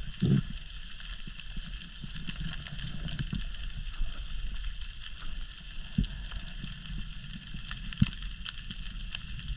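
Underwater ambience heard through an action camera's waterproof housing: a steady hiss with fine crackling over a low rumble, and a few dull knocks, one near the start and others about six and eight seconds in.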